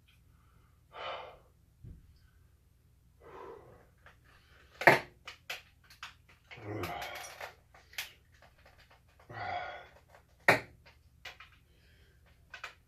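A man's heavy, wheezing breaths through the mouth, four long gasps, as he suffers the burn of ghost pepper chips. Sharp clicks come between them, the loudest about five seconds in.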